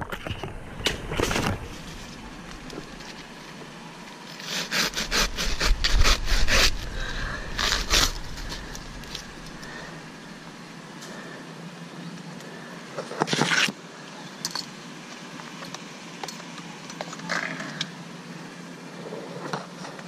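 Dry coconut palm fronds and fibre rustling, scraping and crackling as they are handled, with a run of quick cracks about five seconds in and one loud scrape past the middle.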